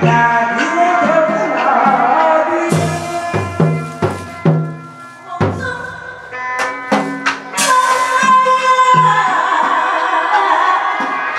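Hát bội opera ensemble playing: repeated low, pitched drum strokes under a sustained melodic line, with a few sharp percussion strikes past the middle.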